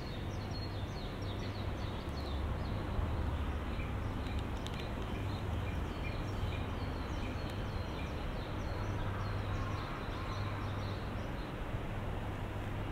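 Small birds chirping over and over in quick, short high notes, above a steady low hum of station and city background noise.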